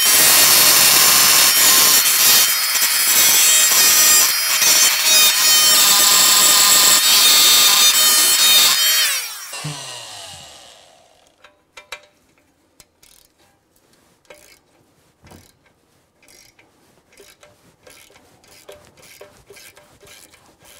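Oscillating multi-tool driving a short, cut-down wrench fitted over a rusted nut, buzzing and rattling hard against it for about nine seconds to shake the frozen stud loose, then winding down. Afterwards, faint light metal clicks.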